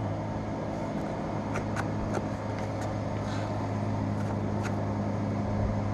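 A few light clicks as the speed-change levers of an Enco 405G (Chien Yeh) gear-head lathe are loosened and shifted, over a steady low mechanical hum.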